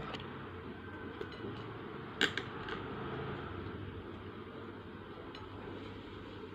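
Steady low hum of background noise with a few light clicks and taps of handling, one sharper knock about two seconds in.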